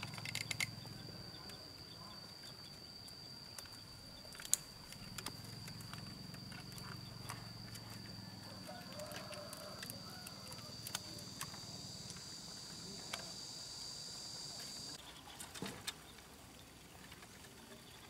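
An insect's steady high-pitched buzz that cuts off suddenly about fifteen seconds in, with scattered light clicks and knocks from bamboo poles being handled and lashed together.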